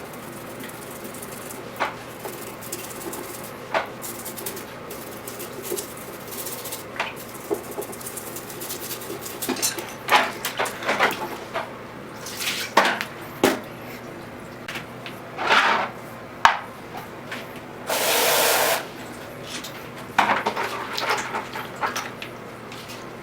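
Intermittent clatter and knocks of small objects and tools being handled, with a short hiss about three quarters of the way through.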